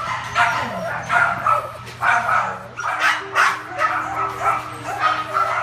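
Several small dogs barking and yipping over one another, about two or three barks a second.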